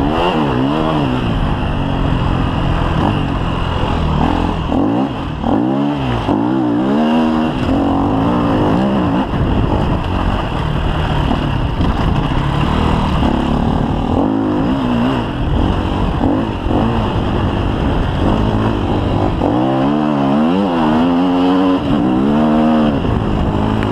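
KTM EXC 250 F's single-cylinder four-stroke enduro engine running hard under load, its pitch climbing and dropping again and again as the throttle is worked through the gears, with the quickest swings about five seconds in and again near the end.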